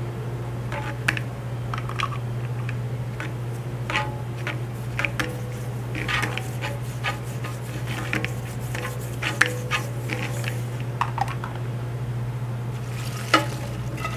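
Dishes and utensils clinking and knocking in scattered short clicks, the sharpest one near the end, over a steady low hum.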